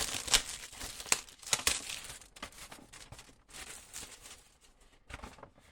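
Plastic shrink wrap being torn open and crumpled by hand, a run of crinkling and sharp rips, busiest in the first two seconds and tapering off near the end.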